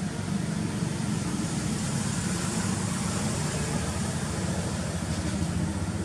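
A motor vehicle's engine running steadily, a continuous low rumble with a hiss above it.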